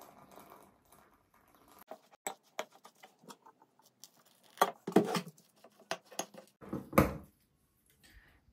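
Kitchen handling sounds: a run of light clicks and taps from utensils and dishes, with a few louder knocks about five seconds in and again near seven seconds.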